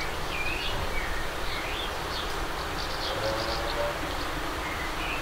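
Outdoor garden ambience: small birds chirping on and off over a steady background hiss and low hum.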